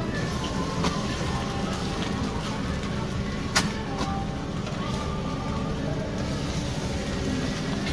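A metal spatula scrapes and taps on a flat-top griddle as cold-noodle sheets with egg are folded, with one sharp clack of the spatula on the griddle about three and a half seconds in. Under it runs a steady low rumble.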